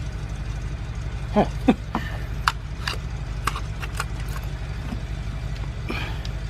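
Small metal clicks and taps as spark plugs are lifted out of the engine's plug wells with a magnetic pickup tool, about half a dozen sharp clicks in the middle, over a steady low mechanical hum.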